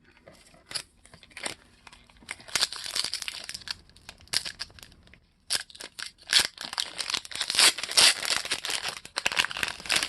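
Trading card pack wrapper being torn open and crinkled in the hands: a run of crackling rips and rustles, busiest in the second half.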